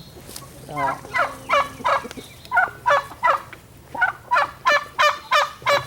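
Guinea fowl calling: a run of harsh, rapidly repeated calls, about three a second, starting about a second in.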